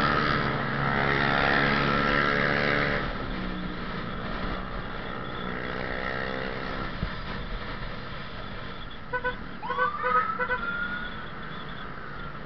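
Yamaha Jupiter Z1's single-cylinder four-stroke engine pulling under throttle while riding in traffic, with wind and road noise; it eases off about three seconds in and pulls again briefly. Near the end come a few short horn beeps and a rising tone.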